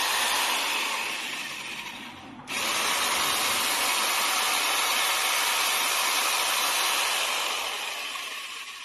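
Electric hand drill's brushed motor, fitted with modified carbon brushes, running at speed on a test run: it winds down about two seconds in, is switched on again at once, and winds down again near the end. It starts every time, so the repair has cured the drill's failure to turn.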